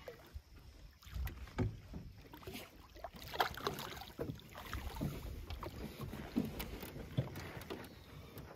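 Hooked northern pike thrashing at the water's surface beside a boat: irregular splashes and slaps of water, loudest about three and a half seconds in.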